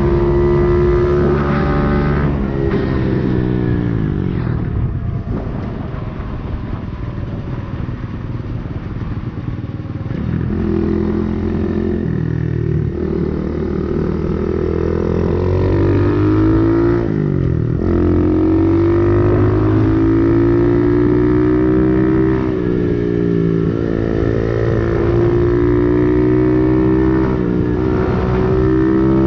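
A 125cc dirt bike's single-cylinder engine running while riding. The revs drop a few seconds in and stay low, climb again about ten seconds in, break sharply once around the middle, then hold steady to the end.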